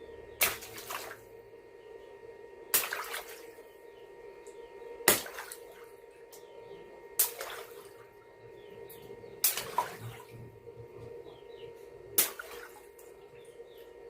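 Six balloons popping one after another, about two to two and a half seconds apart, each a sharp pop with a short ringing tail.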